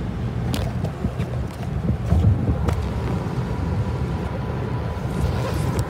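Interior noise of a car cruising at highway speed: a steady low rumble of tyres and engine, with a few light clicks.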